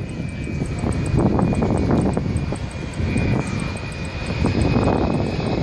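Boeing 737-300 airliner on final approach, its CFM56 turbofan engines making a steady high whine over a low, gusty rumble as it comes in to land.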